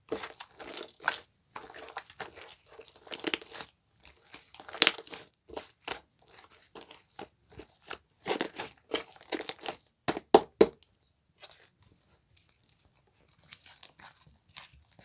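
Irregular crinkling and crunching handling noise: a dense run of short, scratchy sounds that stops about eleven seconds in, leaving only faint scattered rustles.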